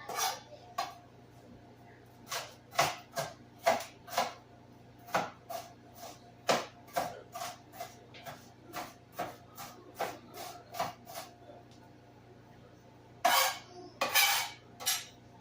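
Kitchen knife chopping on a cutting board in quick, slightly uneven strokes, about two to three a second, dicing seasoning vegetables very small; the chopping stops about three quarters of the way through, followed by two longer, noisier sounds.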